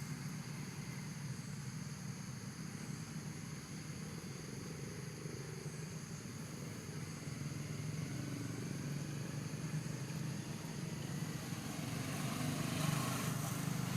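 Steady low engine-like rumble of passing motor traffic, growing louder near the end.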